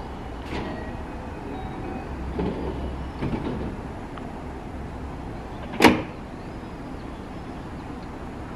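Sliding doors of a JR West 207 series commuter train closing with one sharp thud about six seconds in, over the steady low hum of the train standing at the platform. A few fainter knocks come before it.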